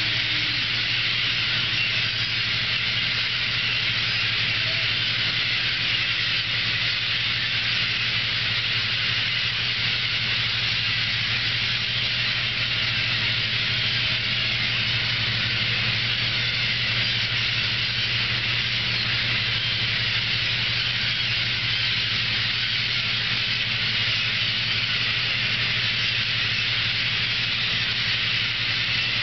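Fishing boat's machinery running with a steady low drone, under a constant even hiss.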